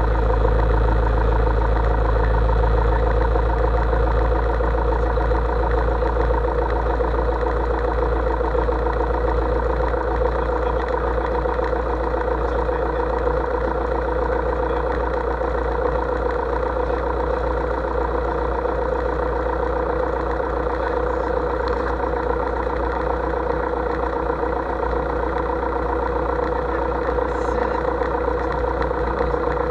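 Single-engine light aircraft's engine idling steadily with the propeller turning, holding an even pitch.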